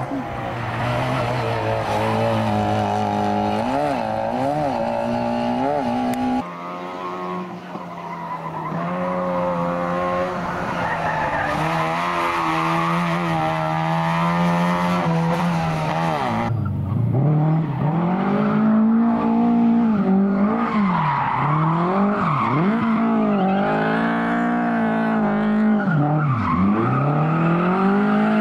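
Rally car engines revving hard, the pitch climbing and dropping sharply with each lift and gear change. The sound switches abruptly to a different engine twice, about six and a half and sixteen and a half seconds in.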